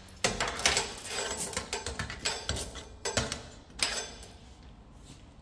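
Hot, freshly roasted coffee beans in a drum roaster giving irregular sharp clicks and clinks, which thin out after about four seconds.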